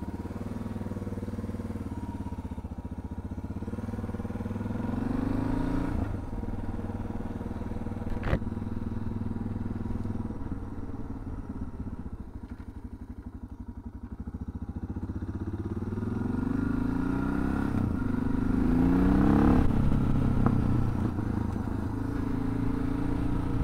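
Suzuki DR650's single-cylinder four-stroke engine pulling away on a test ride, running on freshly changed jetting and new spark plugs. The revs climb and drop off twice, with a single sharp click about eight seconds in.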